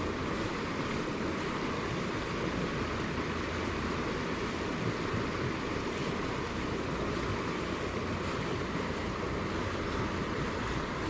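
Steady rush of flowing mountain-stream water, an even noise with no breaks.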